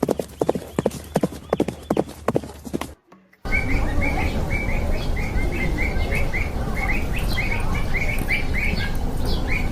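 Horse hooves clip-clopping, cut off abruptly about three seconds in. After a brief gap, many small birds chirp in quick, repeated short notes over a steady noisy background.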